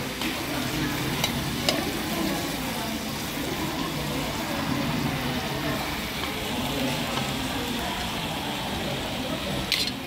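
Sliced pork frying and sizzling steadily in a small cast-iron pan on a tabletop brazier stand, with a few light clicks.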